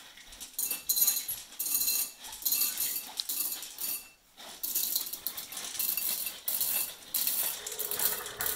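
Small hard candies rattling through a hand-cranked snack dispenser, a PVC pipe with a 3D-printed auger, and clattering into a glass bowl. The clatter comes in repeated bursts, about two a second as the crank turns, with a brief pause about four seconds in.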